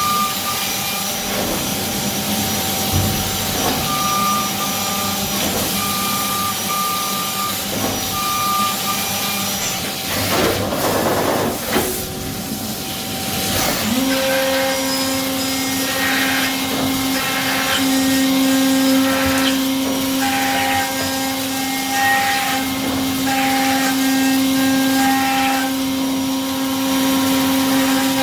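CNC milling machine running a cutting cycle: a steady spindle tone with a repeating pattern of cutting passes. A noisy stretch comes around ten to thirteen seconds in. About fourteen seconds in, the spindle rises to a new, higher steady speed that holds.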